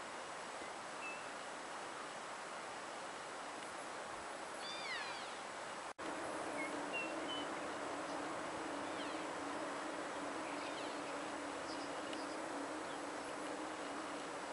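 Rocky Mountain elk calling with high-pitched mews: one clear descending call about five seconds in, with a few shorter, fainter chirps around it. The sound drops out briefly about six seconds in, and a steady low hum runs after that.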